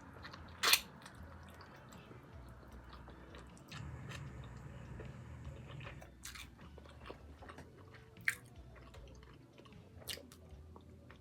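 Close-miked chewing and biting on a buffalo chicken wing, with a few sharp mouth clicks. The loudest click comes just under a second in.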